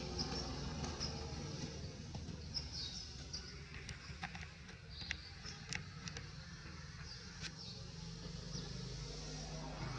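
Outdoor ambience: a steady low rumble with scattered short, high chirps and a few faint clicks a little before the middle.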